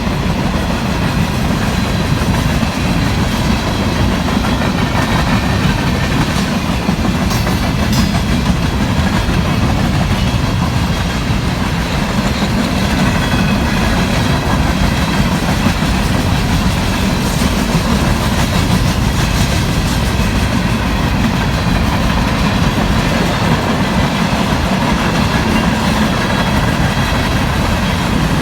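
CSX coke train's freight cars rolling past, with steady wheel clatter on the rails and no let-up.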